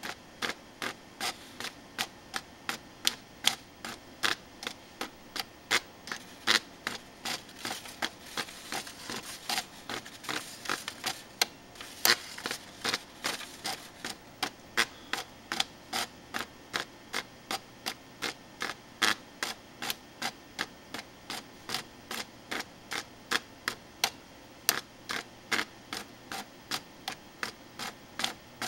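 Commodore 1520 printer/plotter plotting a spirograph, its mechanism giving a run of sharp clicks, about two to three a second and uneven in strength, over a faint whirr as the pen carriage and paper roller step back and forth.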